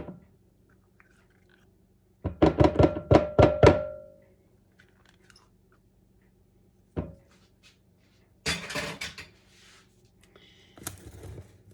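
A spoon rapped quickly against the rim of a bowl, about eight ringing taps in a row, knocking sour cream off the spoon. Later come a single knock and some brief scraping and rustling.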